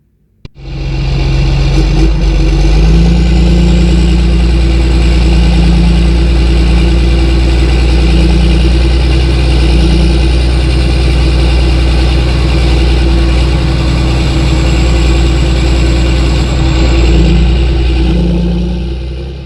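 Engine idling steadily. It comes in about half a second in and cuts off abruptly at the end.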